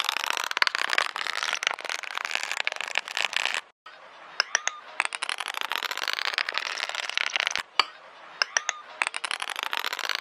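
Thick paint being stirred and smeared with a plastic palette knife in a plastic palette: dense sticky clicking and scraping with a rising swish in each stroke. It comes in three stretches, broken off briefly about four and about eight seconds in.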